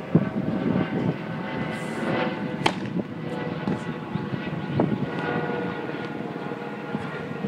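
A steady mechanical drone runs throughout, with a few sharp knocks of a tennis ball bouncing on a hard court, the loudest just under three seconds in.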